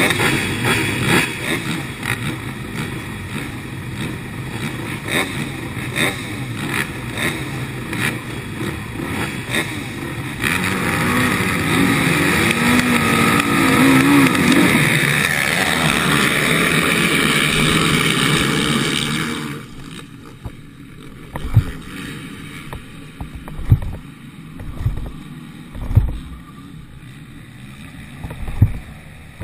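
Racing quad engines running and revving behind the start gate, the revs wavering up and down and getting louder about a third of the way in. Near two-thirds through the sound drops abruptly to the quieter running of the Honda quad, with low thumps every second or two.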